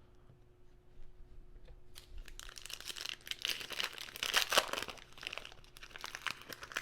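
A baseball card pack's wrapper being torn open and crinkled by hand, starting about two seconds in, with a dense run of crackles.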